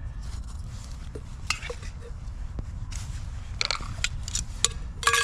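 Clicks, knocks and scrapes of metal and plastic camping-stove parts being handled as a Jetboil cooking cup is unpacked and its gas canister taken out, scattered through the clip with a cluster of louder clicks near the end, over a steady low rumble.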